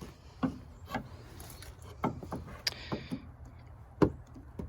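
Scattered light clicks and knocks, about eight in all, as a flathead screwdriver pries and taps at the retaining clip of a hood lift strut's end fitting.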